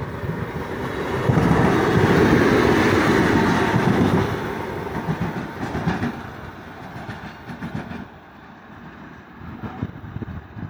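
TEM18DM diesel shunting locomotive running light past at close range. It is loudest for about three seconds starting a second in, then fades as it draws away, with its wheels clicking over the rails.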